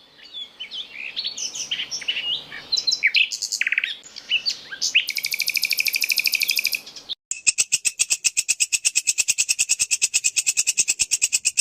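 Recorded songbird song from a mix of species: a fast run of varied chirps and whistled glides, then a quick trill. After a brief cut about seven seconds in, it changes to a steady train of sharp repeated notes at about seven a second.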